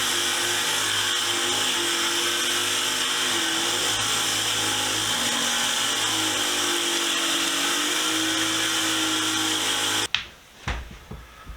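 Motor-driven wire wheel running, its bristles scrubbing rust off steel pliers with a steady hiss, while the motor's pitch wavers as the work is pressed in. The sound stops abruptly about ten seconds in, followed by a few light knocks.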